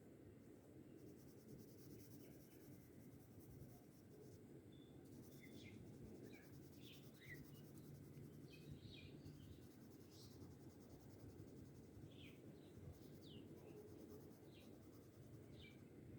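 Faint scratching of a coloured pencil shading on paper, with short, high chirps now and then in the second half.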